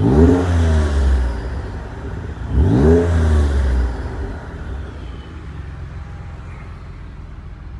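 Mitsubishi Galant VR-4 engine revved twice, once at the start and again about two and a half seconds in, each rev rising and falling back, then settling to a steady idle. The car is known for a whistle, which comes through faintly as a high gliding tone as the revs drop.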